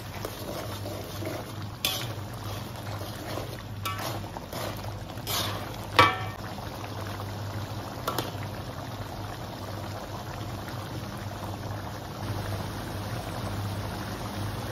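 Tiga rasa sauce simmering and bubbling in a metal wok, stirred with a metal spatula and spoon, which clink against the wok a few times; the loudest, ringing clink comes about six seconds in. A steady low hum runs underneath.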